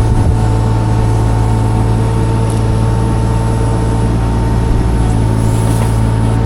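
Mini excavator engine running steadily, with a constant low hum and a thin, steady higher whine over it that stops shortly before the end.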